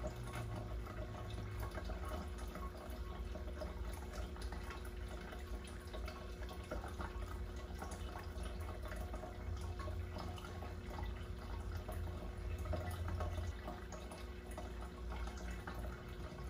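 Water trickling and dripping, a fine crackle of small splashes over a steady low rumble that drops in pitch about two seconds in.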